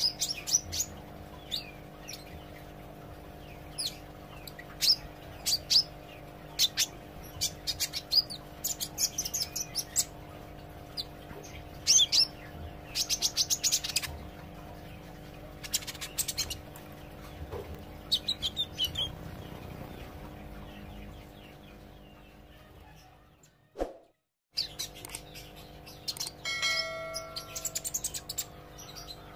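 Green sunbird (kolibri ijo) chirping in short, high, rapid bursts of twittering notes, a young bird practising its song. A steady low hum runs underneath, and the sound drops out briefly about three-quarters of the way through.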